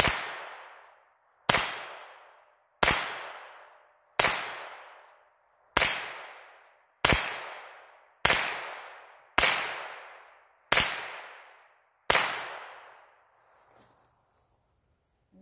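Ten single shots from a .22 rimfire rifle, fired at a slow, even pace about a second and a quarter apart, each crack trailing off over about a second.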